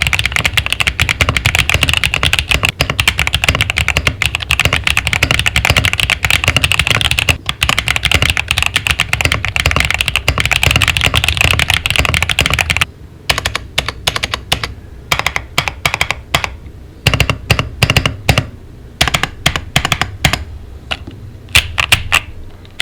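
Typing on a Zuoya GMK67-S 65% mechanical keyboard with a plastic case and Akko Cream Blue V3 Pro tactile switches. It starts as a fast, dense run of keystrokes, and from about halfway it becomes slower, separate key presses with short pauses between them.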